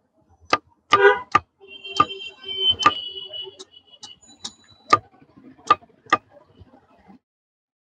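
Machete blade chopping the husk off a young coconut against a wooden block: about nine sharp, irregular chops, roughly one every half second to second. A steady tone runs in the background for about two seconds near the start. All sound cuts off about seven seconds in.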